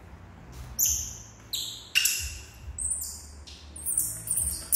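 Young macaques eating juicy melon: a quick series of short, sharp, high-pitched wet smacks and bites, the loudest near the end.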